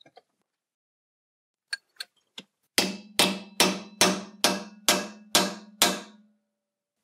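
Hammer striking a steel chisel whose edge is built up with weld, driving it into a thin mild-steel plate held in a bench vise: a few light taps, then eight sharp blows about two and a half a second, with a steady ringing tone that fades after the last blow. The blows test the welded edge against the steel.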